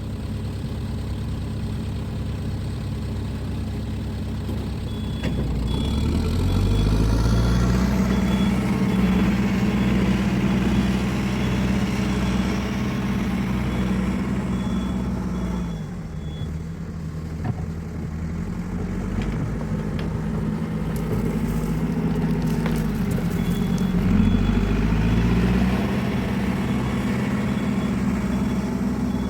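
Caterpillar 416E backhoe loader's diesel engine, idling and then revving up about six seconds in and holding high throttle. It drops back near the middle and revs up again later, the revving of an engine working the hydraulics while backfilling.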